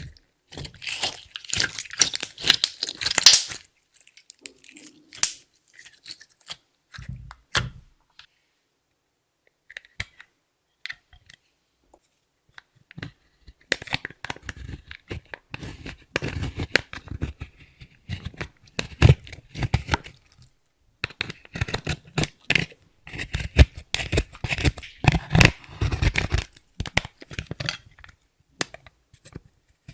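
Clear slime being kneaded and stretched with makeup and glitter worked into it, giving sticky crackling clicks and small pops. There is a busy burst at the start, a sparser stretch, then dense crackling with low squelching thuds from about halfway on.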